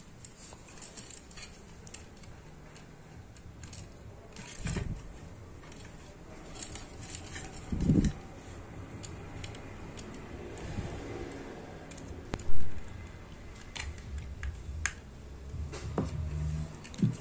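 Hands and a screwdriver working wires into a ceiling fan's terminal block: scattered small clicks, clinks and rustles of wire handling, with a couple of dull thumps and one louder sharp knock about twelve seconds in.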